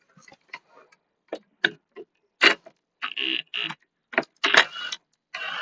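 Irregular clicks and clinks of a socket ratchet and metal parts as the exhaust screws are undone. A steady hiss starts near the end.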